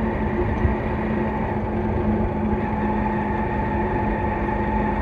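A TVS Sport's small single-cylinder four-stroke engine runs at a steady cruising hum while the motorcycle rides along, under a continuous rush of wind and road noise.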